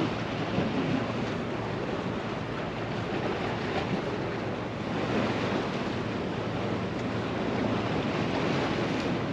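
Surf washing against a rocky shoreline with wind buffeting the microphone: a steady rushing noise.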